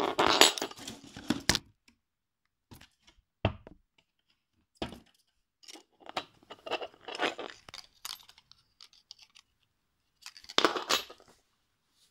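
Packaging being handled and torn while unwrapping a metal bottle opener with a card tag: bursts of rustling and tearing, the loudest at the start and another about ten and a half seconds in, with a single knock of an object set on the wooden table about three and a half seconds in and scattered clicks between.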